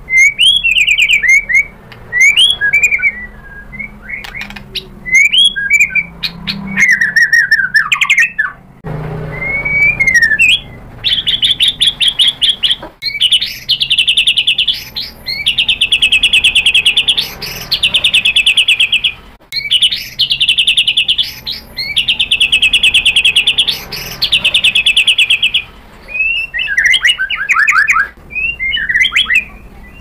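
White-rumped shama singing loudly. It starts with varied whistled phrases that swoop up and down, then a run of about six fast, even trills of about two seconds each, then varied phrases again near the end.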